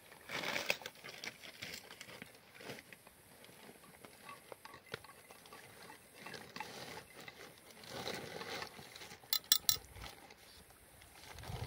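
Tea glasses and teaspoons clinking as tea is served with sugar, small scattered clinks with a quick run of four sharp clinks about nine seconds in, like a spoon stirring sugar into a tea glass.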